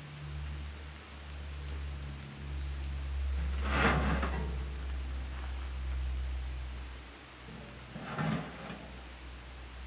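A sheet of iron being lifted and shifted at a fire pit: two short scraping rattles, the louder about four seconds in and a second about eight seconds in, over a steady low hum.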